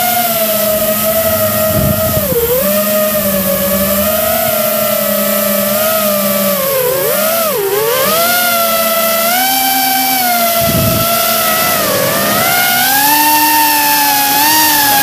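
Electric motors and propellers of a radio-controlled aircraft heard from on board, a high whine whose pitch dips and rises with the throttle, with a sharp dip about two and a half seconds in and another near the middle, climbing toward the end. A second, lower steady motor tone runs beneath it for much of the time.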